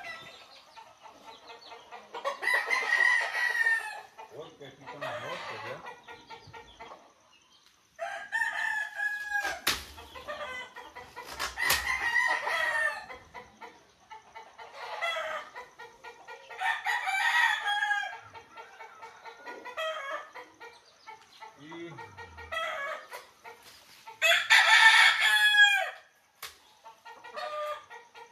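Roosters crowing again and again, about seven crows of a second or two each, with chickens clucking faintly between them. Two sharp clicks come near the middle.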